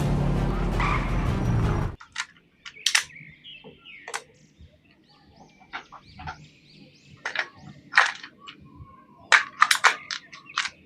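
A loud soundtrack stretch cuts off suddenly about two seconds in. After it come scattered sharp clicks, taps and short crinkling squeaks, which sound like a plastic toy and its packaging being handled and unboxed.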